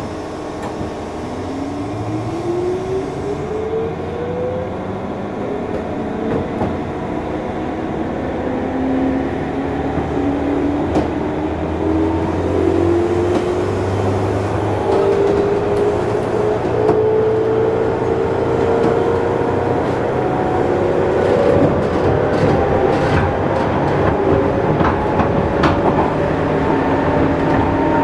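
Interior running sound of a JNR 201-series electric train, heard in the MoHa 200 motor car: the traction motors and WN-drive gears whine, rising in pitch as the train picks up speed. One whine climbs quickly at the start and another rises steadily throughout, with sharp clicks from the wheels over the track in the second half.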